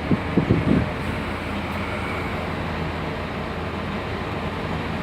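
An engine running steadily with a low, even hum, with a few short low bumps in the first second.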